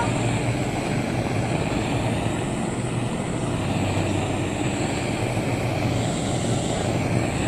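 Hand-held gas blowtorch burning with a steady rushing noise as its flame singes the hair off a hanging carcass.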